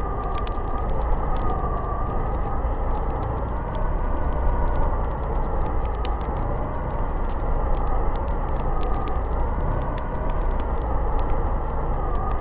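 Snowstorm wind blowing steadily, a dense rushing noise with a faint howl whose pitch slowly wavers up and down. Scattered light ticks sound over it.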